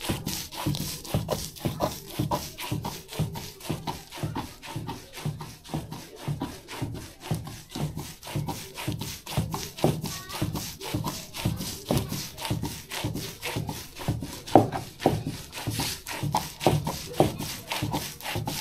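Hand stone rubbed back and forth over a flat grinding stone, grinding a moist paste. It goes as a steady, even rhythm of scraping strokes, about two to three a second.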